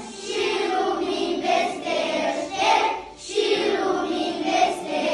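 A class of young children singing a colind, a Romanian Christmas carol, together as a group, with a short pause between phrases about three seconds in.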